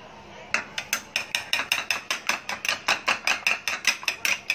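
An egg being beaten in a bowl: quick, even clicks of the utensil against the bowl, about five strokes a second, starting about half a second in.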